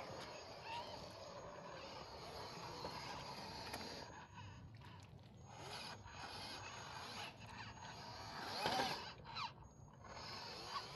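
Faint whine of small electric motors and gears in RC scale crawler trucks driving through mud and water, with a brief rising-and-falling whine near the end.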